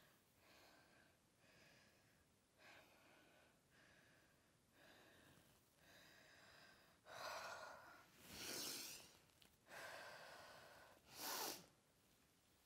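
A woman breathing through the mouth, slow and soft at first, then deeper and louder from about seven seconds in, with a short, sharp breath near the end.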